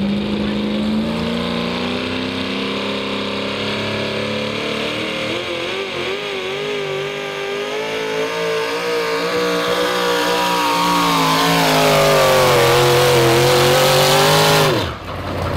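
Modified 4x4 pulling truck's engine at full throttle, dragging a weight-transfer sled. The engine note climbs, wavers up and down, then climbs again to its loudest. It falls away abruptly near the end.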